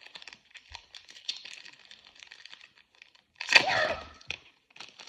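Foil Pokémon booster-pack wrapper crinkling and tearing as it is handled and opened, with many small crackles and a louder, sharper burst about three and a half seconds in.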